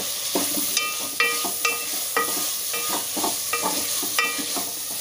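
Wooden spatula stirring vegetables frying in oil in an aluminium pot: a steady sizzle under repeated knocks of the spatula against the pot's side, each ringing briefly, about two a second.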